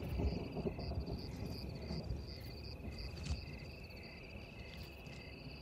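Crickets chirping in the night bush: one steady high trill with another insect chirping in short pulses about twice a second, over a low rumble and a single click near the middle.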